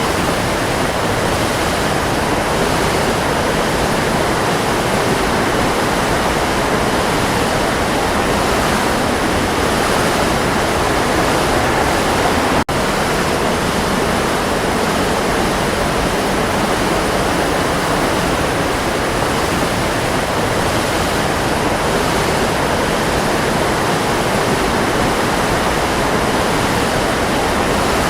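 Waterfall: a steady, unbroken rush of falling water, with a split-second dropout about halfway through.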